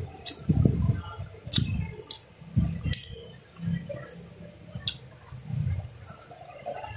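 Close-up chewing and wet mouth sounds of someone eating juicy fruit, a soft squelch roughly every second, with several sharp lip-smacking clicks in between.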